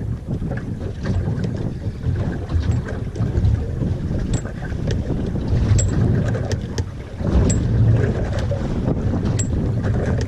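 Wind buffeting the microphone on a small boat at sea, a low gusting rumble, with scattered light clicks and knocks.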